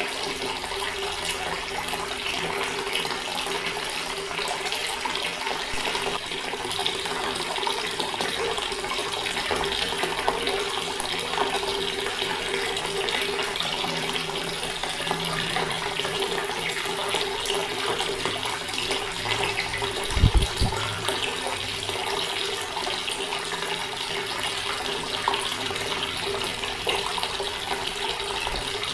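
Water running steadily from a tap and splashing, with a steady hum underneath. About twenty seconds in there is a single brief low thud.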